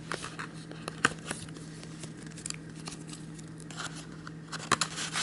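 Paper and card being handled in a cardboard game box: scattered light rustles and clicks, with sharper clicks about a second in and near the end, over a steady low hum.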